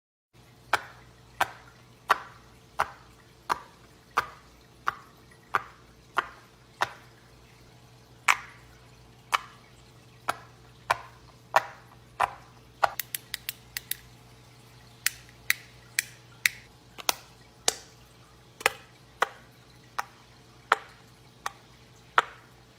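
Sharp clicks or pops from a fidget toy being worked by hand, a little more than one a second, with a quick run of about seven clicks around the middle. A faint steady hum sits underneath.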